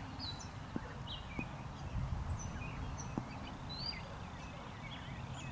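Outdoor ambience: small birds chirping on and off over a steady low rumble, with a few faint ticks.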